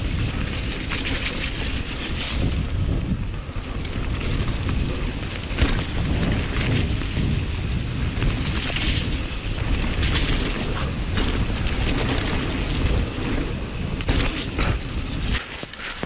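Wind buffeting the camera microphone on a fast downhill mountain bike run, with the bike clattering and rattling over rough, wet ground. The rush drops off suddenly near the end as the bike comes to a stop.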